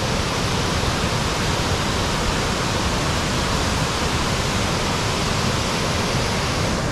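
Steady rushing of fast-flowing water from a mountain stream or waterfall, an even noise with no breaks.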